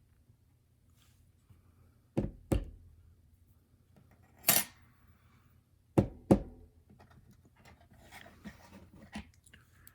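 Metal lock parts being knocked while an Abus euro profile cylinder is taken apart to free its pins: two pairs of sharp knocks, a short scraping rasp between them, then a few light clicks near the end.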